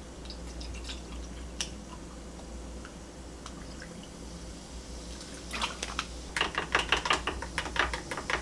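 Carbonated water pouring from a plastic bottle into a glass mug over passion fruit. About five and a half seconds in it gives way to a spoon stirring, a quick run of clinks against the glass.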